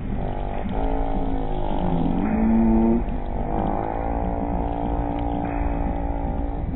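A man's drawn-out, low 'mmm' humming of enjoyment while chewing fried chicken: several long held tones that bend slowly up and down in pitch.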